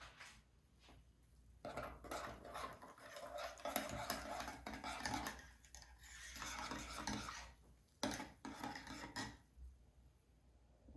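Several seconds of steady rubbing and scraping, as of objects being handled or scrubbed, then a few short clicks and knocks about eight seconds in.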